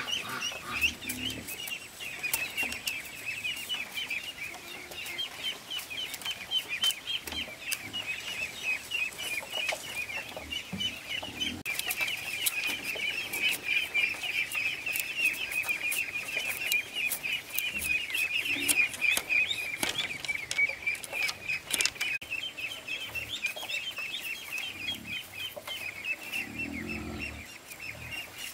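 Chickens on a farm, mostly chicks peeping rapidly and without pause in a dense chorus. Light clicks and taps of a machete working bamboo strips come through now and then.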